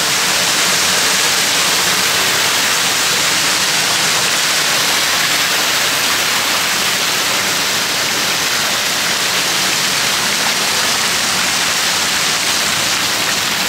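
Water curtains pouring from overhead into a shallow tiled pool, a steady rush of splashing water.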